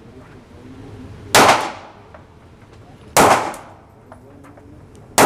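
Three single gunshots, about two seconds apart, each a sharp crack with a short ringing decay, the last one just at the end.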